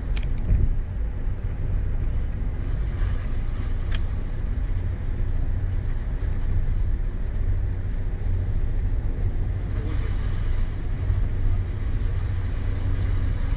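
Steady low rumble of tyre and engine noise inside a car's cabin while driving through a road tunnel. Two brief clicks, one at the very start and one about four seconds in.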